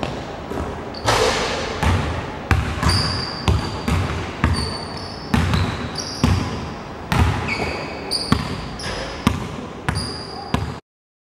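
A basketball being dribbled on a hardwood gym floor, about one bounce a second, each bounce echoing in the large hall, with short high sneaker squeaks between the bounces. The sound stops suddenly near the end.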